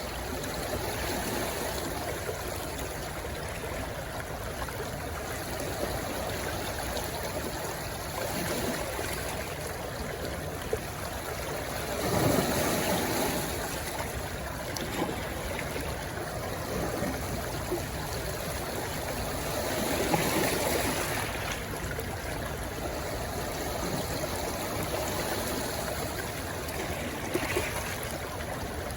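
A stream rushing steadily where it runs into the sea, with two louder swells, one about twelve seconds in and another about twenty seconds in.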